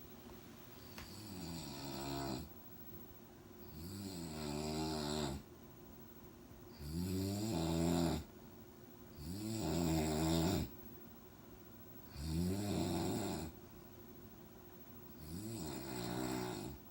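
A man snoring in deep sleep: six low, buzzing snores about every three seconds, each growing louder and then stopping sharply.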